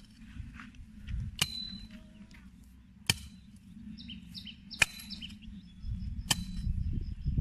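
A hoe striking hard, dry soil four times, about every second and a half, each blow a sharp chop, some with a brief metallic ring. Birds chirp in the background.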